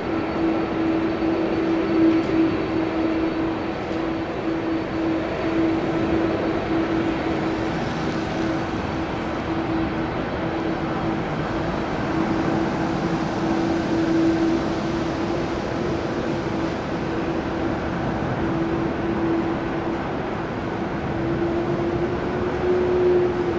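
Airbus A330-300 airliner's jet engines running steadily: a constant whine over a steady rush of noise, with the whine rising slightly in pitch near the end.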